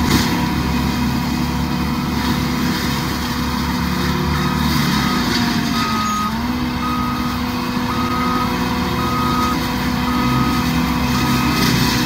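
Cat 299D3 XE compact track loader with a mulcher head running steadily, its engine pitch dipping briefly about six seconds in. About four seconds in its backup alarm starts beeping, a bit under two short beeps a second, as the machine reverses.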